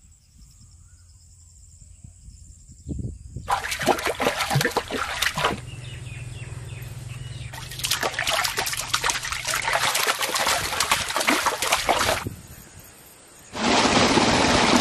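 A child's feet kicking and splashing in the water of a tubewell's brick tank, in two stretches of irregular splashes. Near the end the steady rush of water gushing from the tubewell pipe into the tank cuts in suddenly and is the loudest sound.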